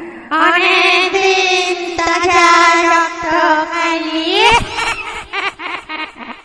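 Eerie wordless wailing voice holding one high note with a wavering vibrato for about four seconds. It then slides upward and breaks into choppy, stuttering fragments near the end.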